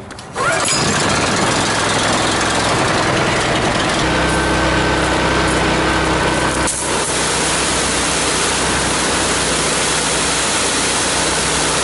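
Honda GX engine on a pressure washer pull-started, catching about half a second in and then running steadily and loud, with water spraying from the wand. The pump is being run on windshield washer fluid to winterize it.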